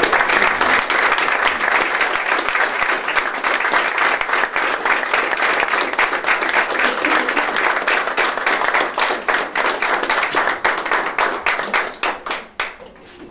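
Audience applauding, many hands clapping at once, thinning to a few last claps near the end.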